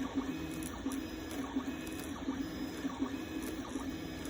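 A home-built 3D printer printing: its stepper motors whir in short tones that shift pitch every fraction of a second as the print head moves, over the steady hiss of the part cooling fan.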